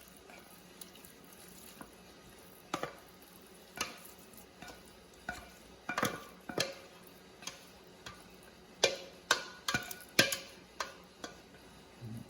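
A spoon scraping and knocking against a skillet as thick chicken pot pie filling is spooned out into a pie crust: irregular clinks and scrapes, sparse at first and coming thick and fast in the second half.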